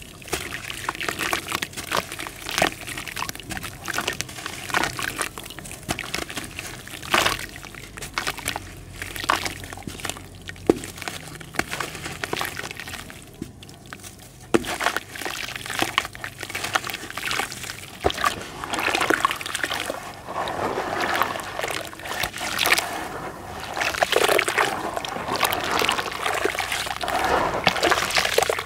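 Wet red dirt crumbled by hand into a basin of water: small crackles and ticks of breaking clay and plops of pieces dropping in. In the second half, hands squish and slosh the dissolving dirt into thick mud, a denser sloshing.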